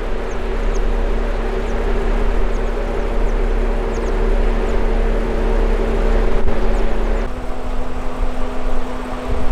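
A 2017 Jeep Wrangler JK Rubicon's V6 engine droning steadily while driving, heard from inside the cab, with a steady rush of wind and tyre noise. About seven seconds in, the engine note steps up slightly in pitch.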